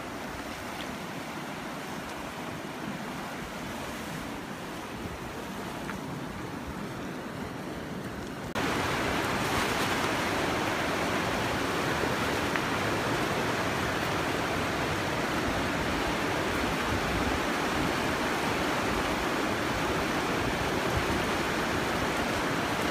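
Steady rush of a fast-flowing mountain river, which jumps louder about eight and a half seconds in and then holds steady.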